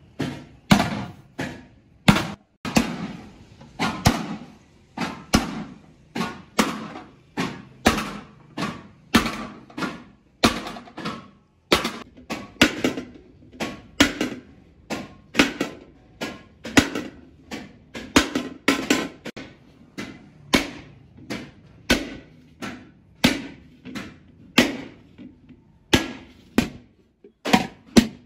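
Wooden mallet beating a large aluminium sheet into a pot bowl by hand. Steady blows about every two-thirds of a second, each with a short metallic ring.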